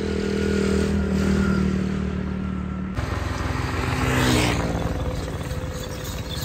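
Motorcycle engine running steadily. About four seconds in, a passing motorcycle sweeps by, its engine pitch shifting as it goes.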